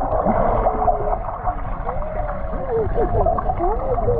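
Muffled underwater sound of a crowded swimming pool: a low rumble with many short squeaky gliding tones, more of them in the second half.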